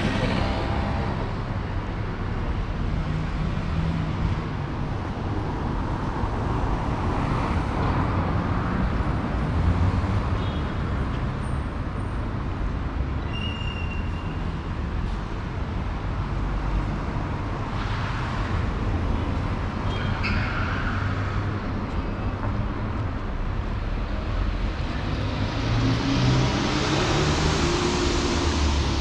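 Street traffic: a steady rumble of cars and motor scooters, with vehicles swelling past every several seconds. Near the end one engine's pitch rises as a vehicle pulls away.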